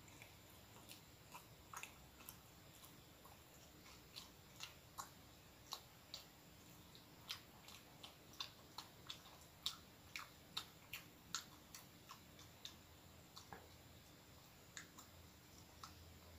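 A person chewing a mouthful of bread roll: a faint run of small irregular mouth clicks and smacks, about two or three a second, busiest in the middle, with another bite taken near the end.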